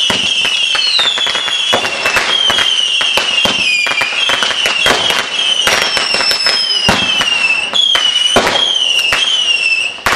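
Fireworks going off together: a run of high whistles, one after another, each dropping slightly in pitch, over dense crackling and popping from firecrackers.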